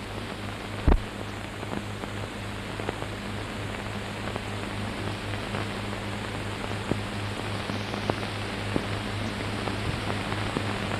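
Steady hiss and low hum from an old film soundtrack, with scattered crackles and one louder pop about a second in.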